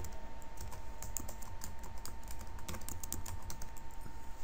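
Computer keyboard being typed on: quick, irregular key clicks, thinning out near the end.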